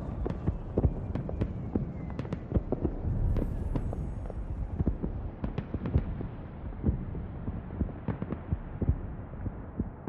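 Dense, irregular crackling pops and sharp cracks over a low rumble, with no singing. The sound grows duller toward the end as the high end fades.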